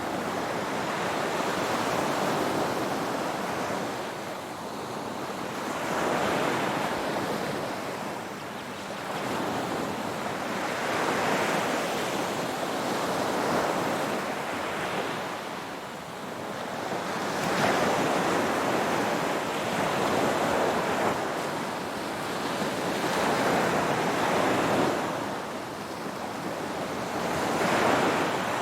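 Ocean waves breaking and washing on the shore, the surf swelling and falling back every two to three seconds.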